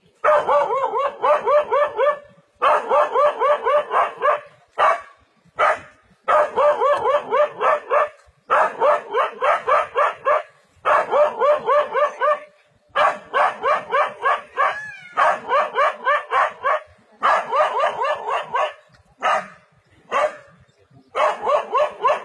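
Dog barking at a leopard in fast runs of about six barks a second, each run lasting about two seconds, with short breaks between them.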